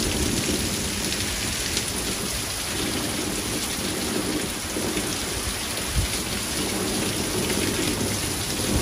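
Heavy thunderstorm downpour: a steady rush of rain pounding the lawn, pavement and parked cars. A single sharp knock comes about six seconds in.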